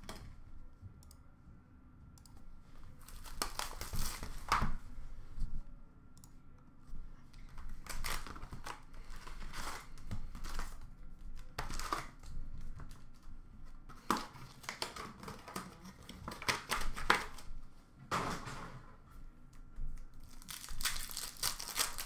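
Trading card pack wrappers being torn open and crinkled by hand, in irregular bursts of crackling and tearing.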